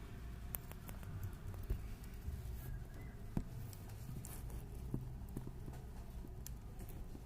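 A hamster nibbling and chewing a flower chafer beetle pupa: scattered small clicks and crunches over a low steady hum.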